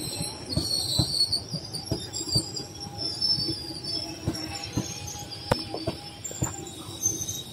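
Duronto Express passenger coaches rolling past at speed on jointed track: the wheels clatter with frequent, irregular knocks over the rail joints, under thin high squealing tones from wheel on rail.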